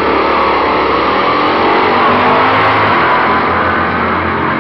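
Two drag-racing cars, one a 1966 Dodge Coronet 500, launching off the start line and accelerating hard at full throttle. The engines run loud, their pitch climbing as they pull away down the strip.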